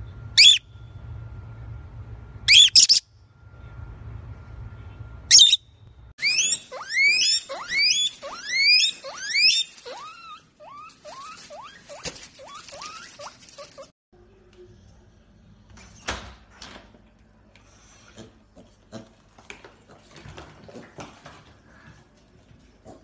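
A featherless parrot gives three short, shrill squawks, then a guinea pig wheeks in a run of whistles that fall in pitch, about two a second, trailing off into softer chirps. Near the end there are only faint clicks and taps.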